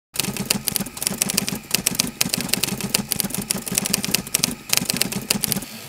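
Typewriter keys clacking in a quick, irregular run, used as a sound effect for text typing on. The strokes thin out near the end.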